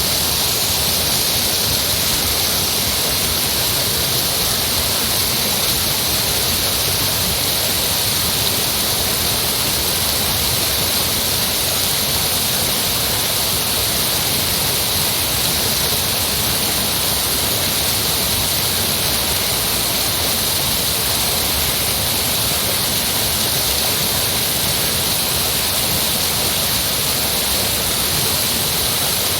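Heavy rushing water with a steady, unbroken hiss.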